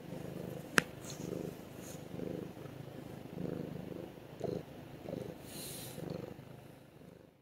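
Fat cat snoring in its sleep, one rasping breath roughly every second. A single sharp click comes about a second in.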